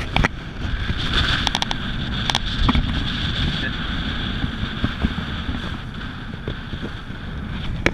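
Honda outboard motor running as a small inflatable boat motors across choppy sea, with water rushing and splashing along the hull and wind buffeting the microphone.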